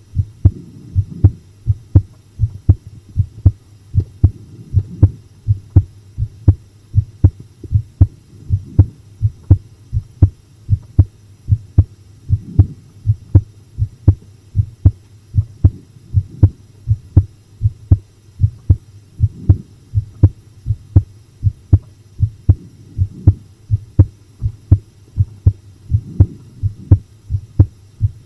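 Close-miked human heartbeat: a steady, even run of low lub-dub thumps with little sound above them.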